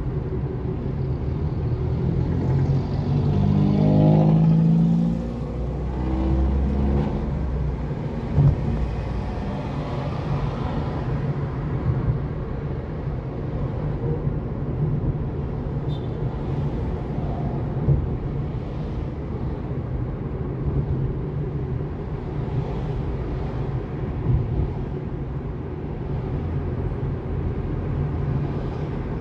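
Car driving along a city street, heard from inside the cabin: steady engine and tyre rumble. An engine note rises and peaks about four seconds in, then drops away, and a few brief knocks come from the car going over bumps.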